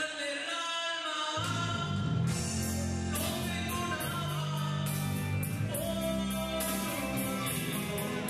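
A rock band playing a song with a singer. The low end drops out for about the first second and a half, then comes back in with regular beats.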